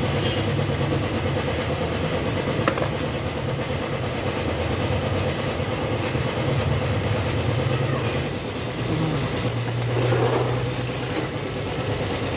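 Steady mechanical drone of a machine running in the workshop, with a couple of sharp metallic clicks, about three seconds in and again near the ten-second mark.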